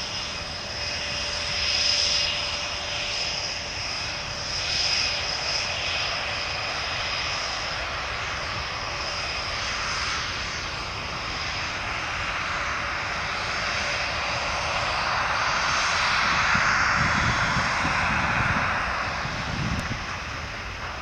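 Panavia Tornado IDS's twin RB199 turbofan engines running while the jet stands still on the taxiway: a steady jet whine with high tones over a rushing noise. It grows louder for a few seconds after about fifteen seconds in, then eases off.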